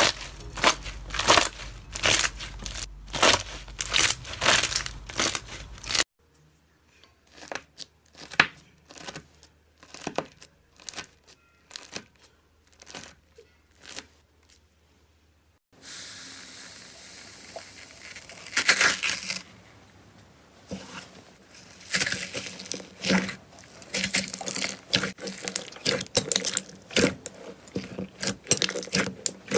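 Slime ASMR handling sounds in three parts. First, hands press and pull clear slime over purple beads with dense crackling. Next, a knife cuts through a crunchy foam-bead clay figure in separate crunches about once a second. Last, hands squeeze glossy teal slime in a glass bowl, with a hiss and then bursts of clicking and popping.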